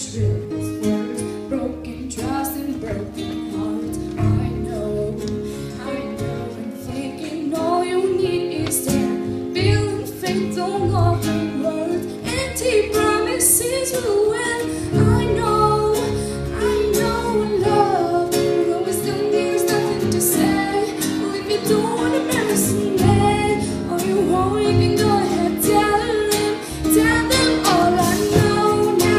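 Music: a song with female singing over guitar accompaniment.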